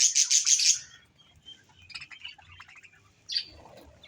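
Small pet parrots chirping: a loud rapid run of high chirps in the first second, then scattered faint chirps and one short call near the end.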